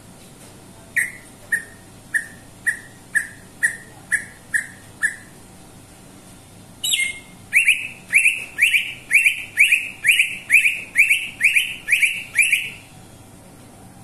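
Cucak ijo (green leafbird) singing: a string of about nine short falling notes, about two a second, then a pause of over a second and a louder, faster string of about a dozen rising notes.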